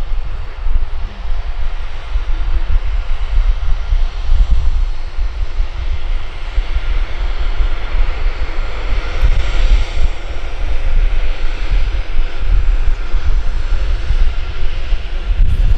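Boeing 737-800's twin CFM56 jet engines running as the airliner rolls along the runway: a steady, noisy rumble with a hiss that swells about nine to ten seconds in.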